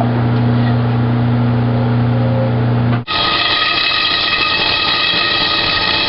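Steady low electric machine hum of the shop's hydraulic wheel-straightening equipment. About three seconds in it cuts off abruptly, replaced by a steady high-pitched whine of a power tool.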